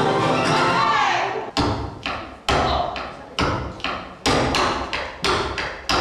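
Flamenco music with a falling vocal line ends about a second and a half in. It gives way to a slow, uneven series of loud stamps of flamenco footwork on a stage floor, roughly one a second, with lighter taps between.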